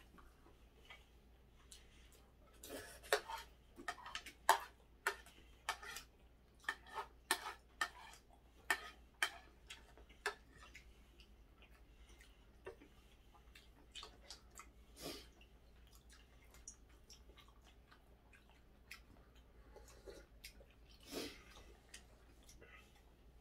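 Eating sounds: a spoon clicking and scraping against a ceramic plate, with chewing. A quick run of sharp clicks about three seconds in lasts several seconds, then only scattered ones.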